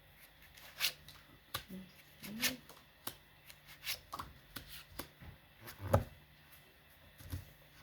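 Tarot cards being handled: a scattered run of soft rustles, slides and taps, with the sharpest tap about six seconds in.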